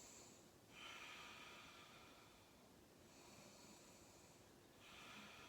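Faint, slow deep breathing: about three long breaths, in and out, each lasting a second or so.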